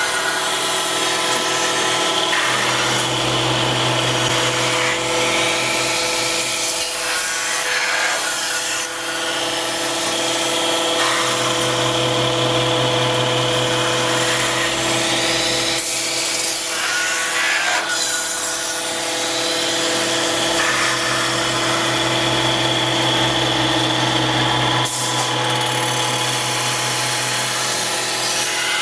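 CNC metal spinning lathe running, its forming roller rubbing against the spinning sheet-metal workpiece as it presses the flared bell shape over the mandrel. The sound is a steady ringing whine with a rasping edge. A lower hum comes in for a few seconds at a time, three times.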